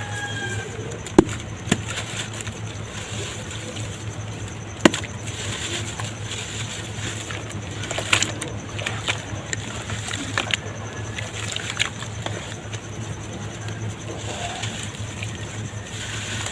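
Lumps of soft red dirt crumbling and dropping into water, with irregular crackles and a few sharp snaps, over a steady low hum.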